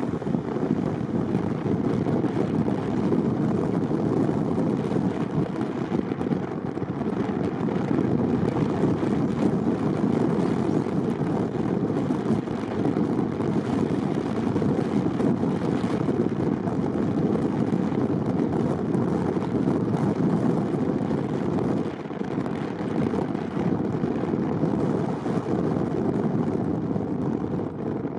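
Steady road and engine noise of a car driving, an even rumble without pauses or changes in pace.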